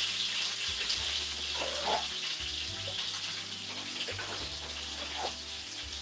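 Steady hiss of pots and pans cooking on a stovetop.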